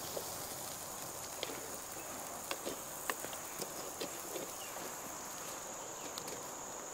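Irregular small pops and crackles from a wood-burning camp stove with lamb cooking over the flames, fat spitting into the fire, over a steady high insect drone.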